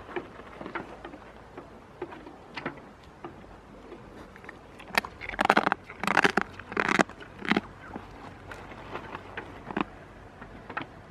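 Goat close to the microphone: irregular crackling and small knocks throughout, with a run of loud bumps and rubbing about halfway through as the goat noses at the camera.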